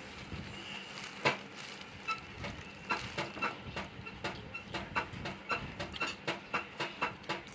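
A person chewing a mouthful of rice with closed lips, making wet smacking clicks about three times a second, after one louder smack about a second in.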